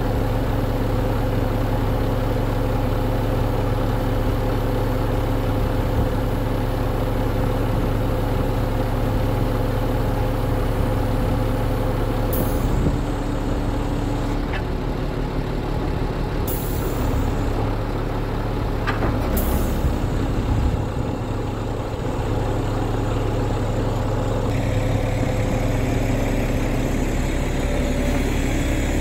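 Renault Premium 420 truck's six-cylinder diesel engine running steadily, driving the hooklift hydraulics as the hook arm swings upright. Three short hisses and a couple of sharp clicks come about halfway through.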